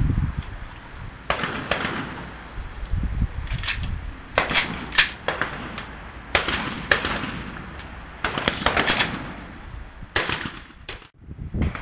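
Benelli M2 Tactical semi-automatic shotgun firing a string of shots, about a dozen sharp reports, some only a fraction of a second apart, each with a short echoing tail.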